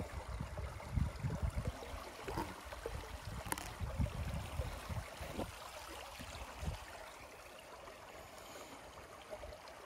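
Faint steady rush of creek water. Over it come irregular low, muffled thumps against the microphone that fade after about seven seconds, and a couple of light ticks.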